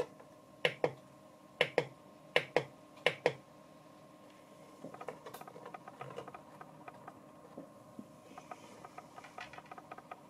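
Five pairs of sharp clicks as the controls of a digital buck-converter power-supply module are pressed and released. Then a run of quick, fainter ticks as the module's rotary encoder knob is turned, raising the output voltage.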